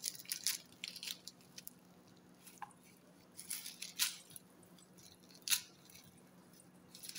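Flaky bakarkhani bread being crushed by hand in a stainless steel bowl: faint, irregular crackling and crunching of the dry layers, with a few sharper crackles and a quieter stretch in the middle.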